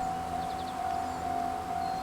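Japanese railway level-crossing warning bell ringing: a steady ding-ding tone that repeats about twice a second, the signal that a train is approaching.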